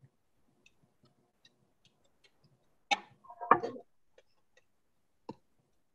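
Faint scattered clicks, then a short clatter of knocks about three seconds in and a single sharp click near the end: a spoon and bowl being handled as a teaspoon of beaten egg is added to the mixer.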